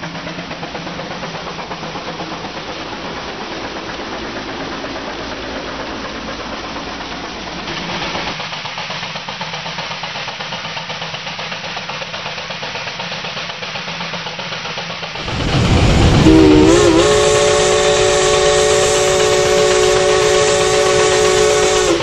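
Steam traction engine running with a steady, even rhythm, then its steam whistle blows about fifteen seconds in: a loud chord of several steady tones that slides up briefly at the start and holds for about six seconds.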